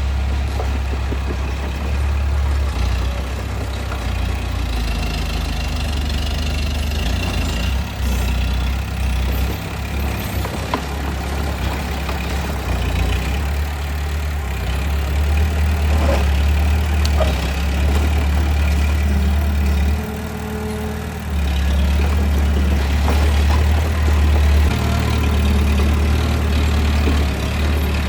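Bulldozer's diesel engine running with a steady low rumble, easing off briefly about two-thirds of the way through before coming back up, with a few faint knocks.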